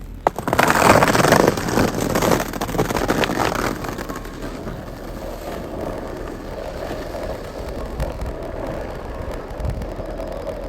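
Skateboard wheels rolling on pavement: a steady rough rumble, loudest in the first couple of seconds, after a sharp click just after the start.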